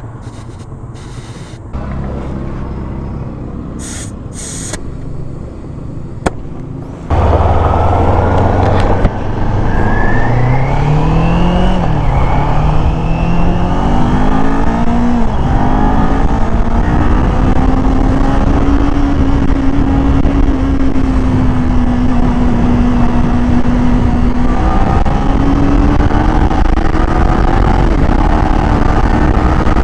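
A few short hisses of an air hose at a tyre valve, then from about seven seconds in a Kawasaki Z400's parallel-twin engine through its stock muffler, pulling hard: the engine note climbs in steps with the gear changes, holds steady for a while, then climbs again near the end, under wind noise.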